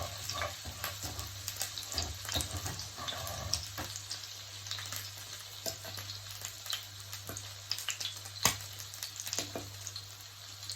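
Salmon frying in a pan: a steady sizzle broken by frequent sharp crackling pops of spattering oil.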